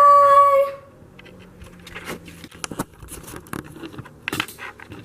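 A person's voice holding one high sung note, which cuts off about a second in, followed by faint scattered clicks and taps.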